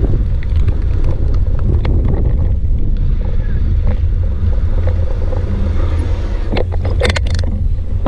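Bicycle rolling over dry packed dirt, heard on a bike-mounted action camera: a steady low rumble of tyre and wind noise, with a quick run of sharp clicks and rattles near the end.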